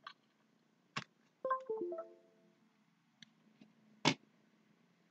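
Sharp clicks, typical of computer mouse or keyboard use, about a second in and again near the end. Between them comes a short electronic notification chime of four quick notes stepping down in pitch.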